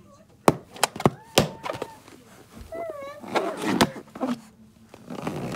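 A baby mouthing and patting an inflated rubber balloon: a handful of sharp taps on the balloon, with short squeaks in between that waver in pitch.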